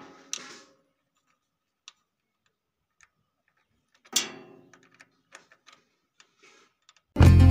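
Metal clinks and taps of a 10 mm spanner working the nut on a mini power tiller's gear lever, with one louder ringing clank about four seconds in. Loud music starts just before the end.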